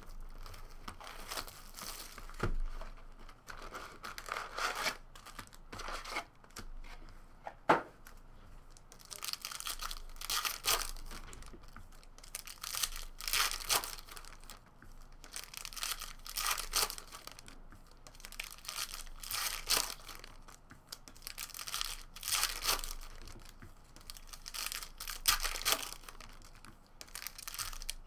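Shiny wrappers of Panini Contenders Football trading-card packs being torn open and crinkled, in repeated irregular bursts. A single sharp click about eight seconds in is the loudest sound.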